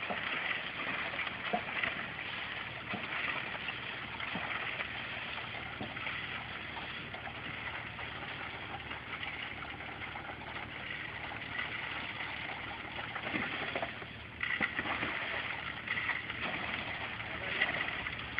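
Crushed stone sliding and rattling out of a truck bed as a worker drags it down with a shovel: a steady gritty hiss with scattered clicks of stones, a little louder about 14 seconds in.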